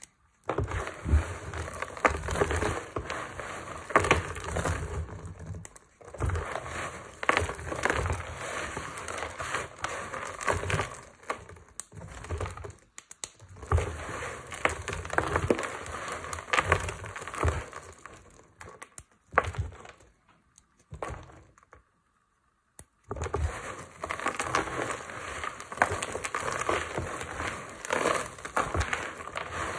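Hands crushing and crumbling dry chunks of lavender, baby and tar soap, a dense crunchy crackle. It comes in passages several seconds long, broken by short pauses and a longer quiet spell about two-thirds of the way through.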